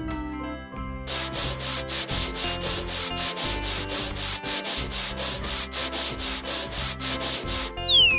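Cartoon sanding sound effect for a spinning sanding disc working over a rusty motorcycle: rhythmic rasping strokes, about three a second, starting about a second in, over background music. A falling whistle near the end.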